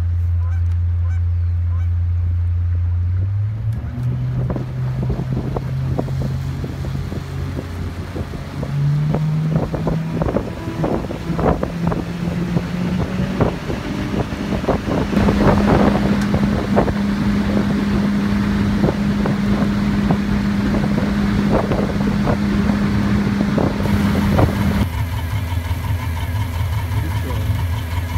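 Mercury 90 outboard engine revving up in steps from a fast idle to high revs, near 6000 rpm, and holding there with a rapid, irregular crackle over the engine note. About 25 seconds in it abruptly drops to a steady lower speed.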